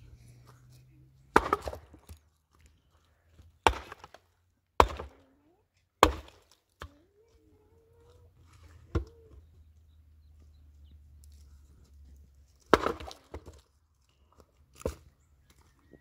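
Pickaxe striking hard, stony ground: about eight sharp blows at uneven intervals, some followed by a smaller knock.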